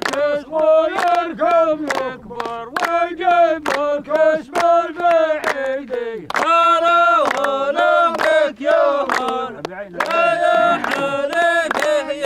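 A man's voice singing slowly, holding long notes that waver and bend in pitch.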